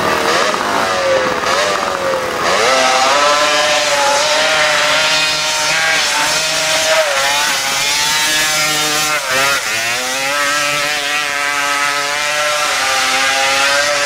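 Pro hillclimb motorcycle engine running at high revs up a steep dirt hill, its pitch rising and falling again and again as the rider works the throttle over the jumps, with a sharp drop about nine and a half seconds in.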